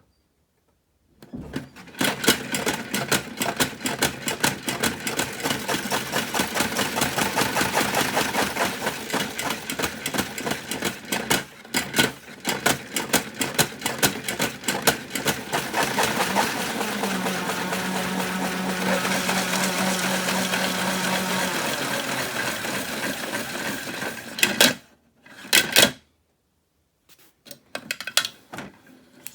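Toy washing machine running with tripods inside, a fast continuous clatter over a small motor's hum. It starts about a second in and stops suddenly near the end, followed by two brief bursts of rattling.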